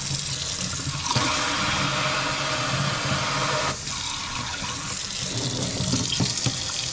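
Water running from a pull-down kitchen faucet's spray head into a stainless steel sink, at a pretty weak flow that the plumber puts down to the faucet's water-conservation design. The rush shifts in level about a second in and again near four seconds.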